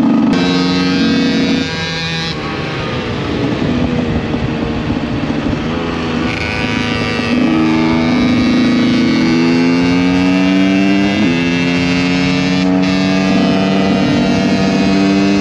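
Small two-stroke motorcycle engine running at high revs under way. The pitch climbs as it accelerates and drops sharply at each gear change.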